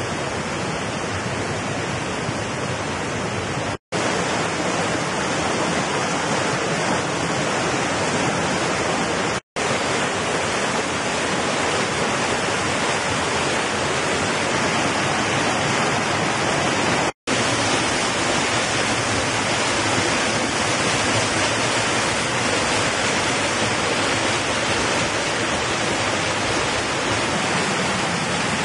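Mountain stream rushing over rocks in small cascades: a steady, loud rush of water. The sound drops out for an instant three times, where the recording is cut between shots.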